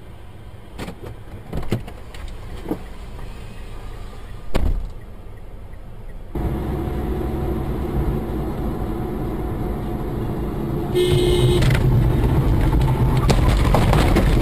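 Dashcam sound from inside a car. At first the car is stopped, with low cabin noise and a few faint knocks. After a cut, a car is driving, with steady engine and road noise, and a short car horn honk sounds about three quarters of the way through.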